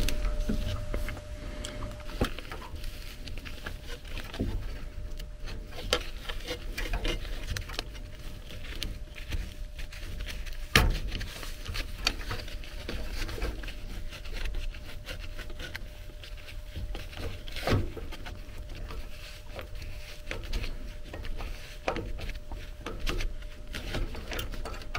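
Scattered clicks, taps and rubbing from hand work with an adjustable wrench and thin copper tubing at an air-handler evaporator coil, with a sharper knock about eleven seconds in and another near eighteen seconds.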